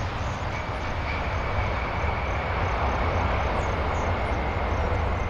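Boeing 747 jet engines rumbling with a faint steady high whine as the airliner rolls down the runway just after touchdown.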